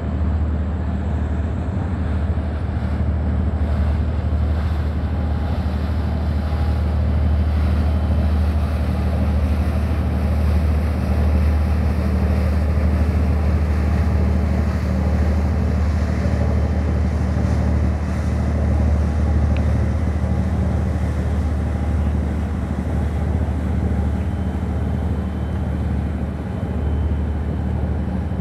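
Deep, steady rumble of a large container ship's engines and machinery as it passes close by, with a steady hum in it and some wind noise on the microphone.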